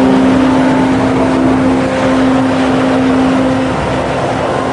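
Water jetting at full force from a large dam outlet pipe: a loud, steady rush, with a steady low tone held through most of it.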